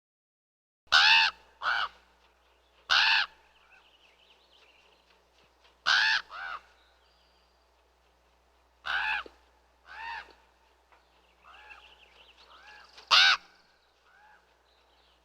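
Raven calling: a series of harsh, loud croaks, some single and some in quick pairs, a second or three apart. Fainter calls come between them near the end.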